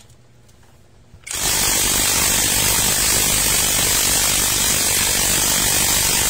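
Cordless impact wrench starting about a second in and then hammering steadily on a scooter's rear axle nut, trying to break loose a nut that stays stuck.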